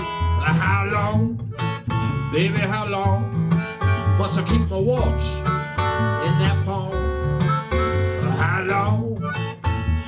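Acoustic country blues played by guitar, harmonica and washtub bass with no singing: fingerpicked acoustic guitar, a harmonica playing bending, wavering notes, and the washtub bass plucking the low notes underneath.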